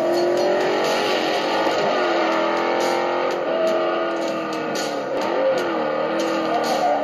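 Film soundtrack of electric-guitar rock music, with a Countach-replica sports car's engine note rising and falling underneath.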